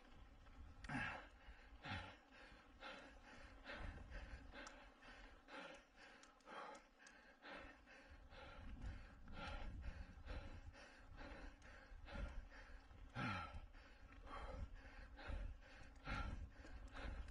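Cyclist's hard, rhythmic breathing under full race effort, about one heavy exhale a second. A few exhales are voiced, with a falling pitch.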